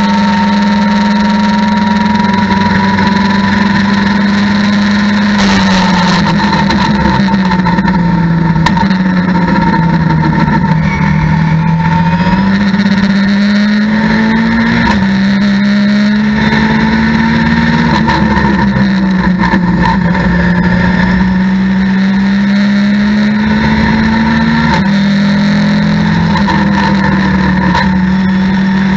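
A Mitjet race car's engine, heard from inside the cockpit, running hard under load. It falls in pitch under braking and downshifts about six to eleven seconds in, then climbs again as the car accelerates, with quick upshifts heard as sudden drops in pitch about fifteen, eighteen and twenty-five seconds in.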